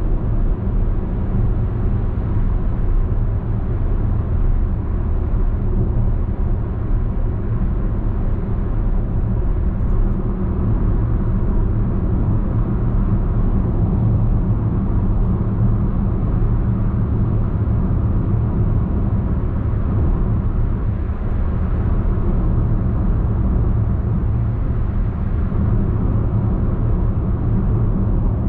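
Steady low rumble of road, tyre and engine noise inside the cabin of a Perodua Alza MPV cruising at highway speed, even throughout with no distinct events.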